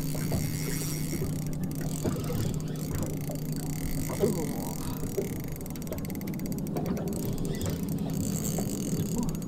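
Small spinning reel being wound against a hooked trevally, its gears ticking as the line comes in, over a steady low engine hum.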